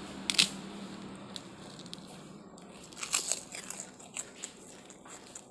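Close-up eating sounds: fried rice being eaten by hand from a paper wrapper, with the paper crinkling and chewing. A sharp click about half a second in, then scattered crackles, busiest about three seconds in.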